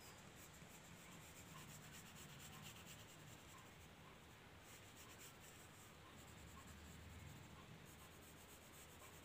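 Faint scratching of a pencil rubbing on paper in repeated shading strokes.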